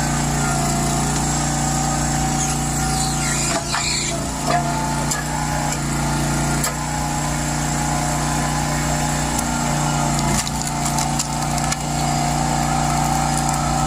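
Log splitter's small petrol engine running steadily, with a few sharp knocks about four seconds in.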